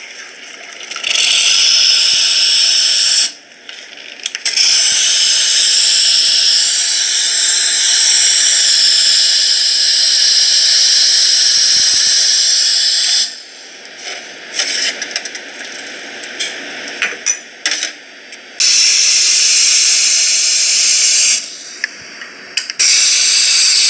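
Espresso machine's hot-water spout dispensing near-boiling water onto a paper filter in a pour-over dripper, rinsing it: a loud steady hiss in long spells that breaks off about three seconds in, again for several seconds past the middle, and once more near the end, with light clinks in the pauses.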